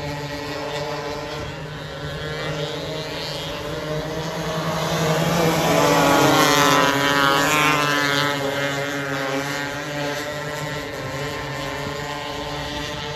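A winged 270 micro sprint car's engine runs at speed. It grows louder as the car approaches, is loudest as it passes close by about six seconds in, and its pitch drops as it moves away.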